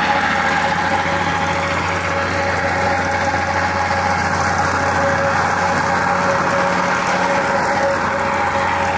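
Plate compactor's small engine running steadily at an even pitch.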